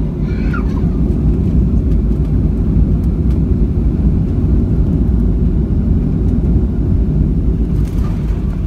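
Steady low rumble inside the cabin of a Boeing 737-700 taxiing, its CFM56-7B jet engines running at taxi power as the plane rolls along the taxiway.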